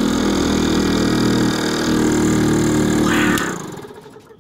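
Small electric air compressor running steadily with a loud motor hum, then winding down and stopping about three and a half seconds in.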